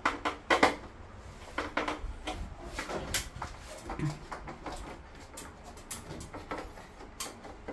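Irregular light clicks and knocks of handling, scattered through, with a couple of brief voice sounds in between.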